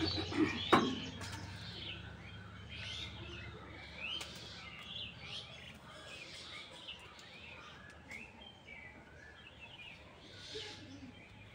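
Small birds chirping and calling on and off, with a single sharp knock about a second in.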